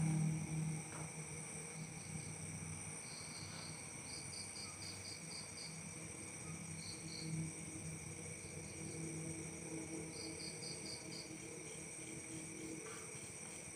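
Crickets and other night insects calling: a steady high-pitched trilling throughout, with recurring runs of quick pulsed chirps. A low hum sits beneath, loudest at the very start.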